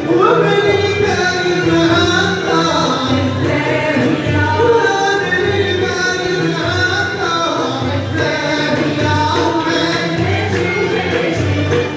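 Madih (religious praise song) ensemble performing: several voices singing together with ouds, violins and a cello, over a steady low pulse.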